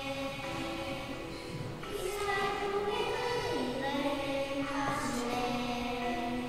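Two young girls singing a praise song together in held, sustained notes that change pitch every second or so.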